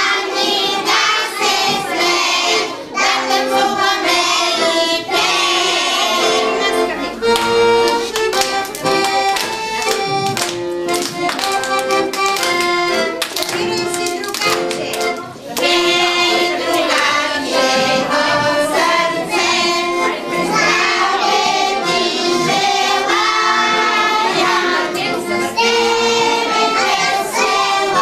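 Young children singing a song together to piano accordion accompaniment, with hand claps keeping time for a stretch in the middle.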